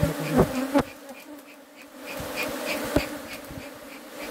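Honeybees buzzing around an opened hive, a steady droning hum, with a few sharp knocks.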